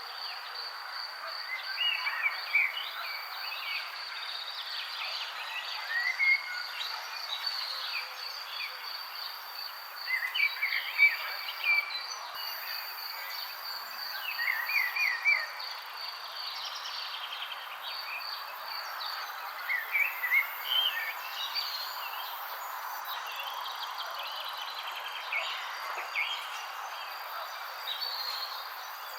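Several songbirds chirping in short, quick clusters every few seconds, over an insect's steady high-pitched trill and an even background hiss.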